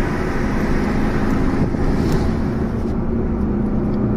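Road noise and the engine's steady hum of a moving Fiat Egea car, heard from inside the cabin; the higher hiss drops away about three seconds in.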